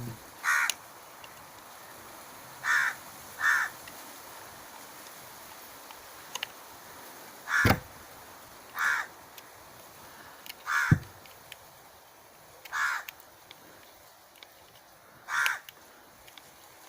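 A crow cawing: seven single short caws spread through, over a quiet background. About eight and eleven seconds in come two sharp knocks from handling as the cover is fitted back onto the horn, the second the loudest sound.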